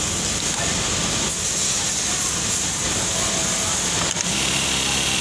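Steady din of a garment factory's sewing floor, many industrial sewing machines running together. Near the end a closer steady hum sets in as a Juki single-needle lockstitch machine starts sewing.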